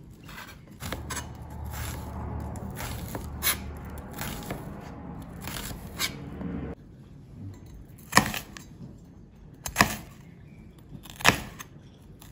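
Chef's knife slicing a red onion into half rings on a cutting board: a quick run of sharp knife taps in the first half, then three louder, slower cuts about a second and a half apart.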